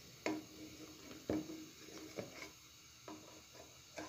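Wooden spoon stirring milk boiling down for khoya in a steel pot, knocking against the pot's sides several times. The two loudest knocks come about a quarter second and just over a second in.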